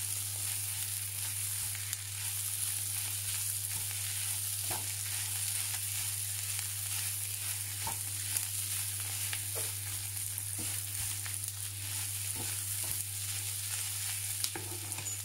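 Pounded pork, garlic and shallots sizzling in hot oil in a pan as they are stir-fried, with a spatula scraping and clicking against the pan every second or so. A low steady hum runs underneath.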